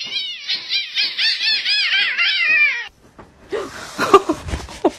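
A cat meowing in a rapid string of short rising-and-falling meows, about four a second, for roughly three seconds. Then a noisy stretch of rustling with a few knocks, the loudest a sharp knock about four seconds in.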